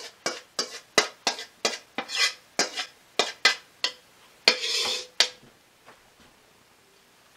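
A metal spoon knocking and scraping against a stainless steel mixing bowl to empty out cheese-coated ziti, about three sharp strikes a second with a longer scrape near the end. It stops about five seconds in.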